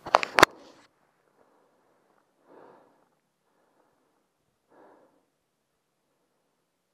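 Breath and air noise close to a helmet-mounted microphone: a few sharp, loud puffs in the first half second, then two faint breaths about two seconds apart.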